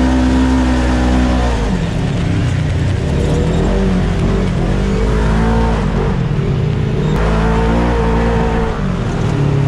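Polaris RZR 1000 side-by-side engine running under load while driving on sand. Its pitch holds steady, drops about a second and a half in, then rises and falls as the throttle changes.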